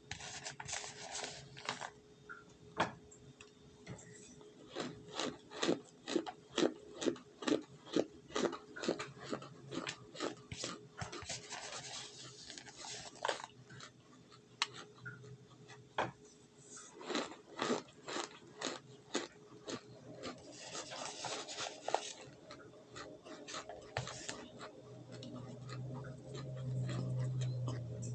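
Crunching of baked cornstarch close to the microphone: many sharp, crisp crunches, coming about two a second for a stretch in the middle. A low hum builds near the end.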